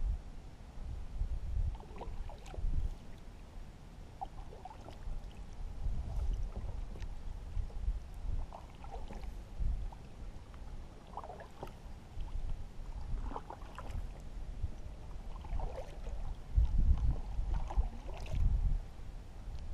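Paddling a small boat through shallow marsh water: uneven paddle strokes with splashes and drips off the blade, over a low, uneven rumble.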